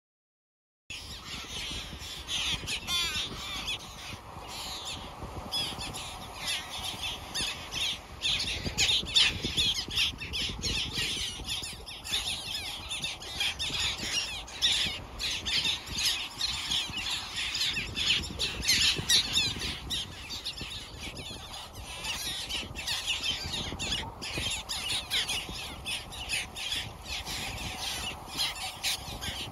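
A flock of seabirds squawking and calling constantly over a low steady rush, starting suddenly about a second in.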